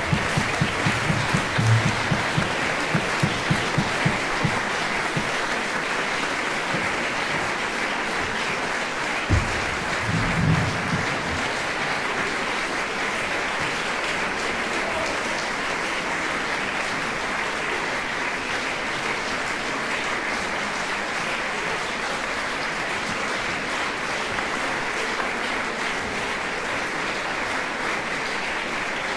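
Concert hall audience applauding, a steady wash of clapping. Low rhythmic thumps sound through the first few seconds, and a single sharp thump comes about nine seconds in.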